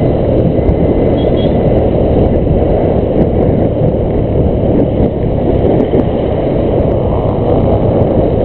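Motorcycle riding along at speed: steady wind rush buffeting the handlebar camera's microphone over the running engine.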